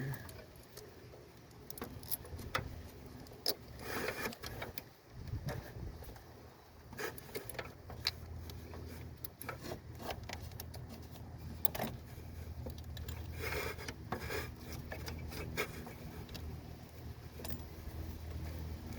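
Small metal clicks, clinks and scrapes as a negative battery cable is routed and bolted back onto its battery terminal by hand, with a faint steady low hum in the background.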